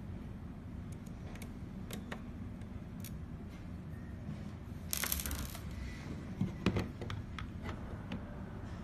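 Hands and a small screwdriver working on a car stereo head unit's housing: scattered small clicks and taps over a steady low hum, a short scraping rasp about five seconds in, then a few louder knocks as the back cover comes off.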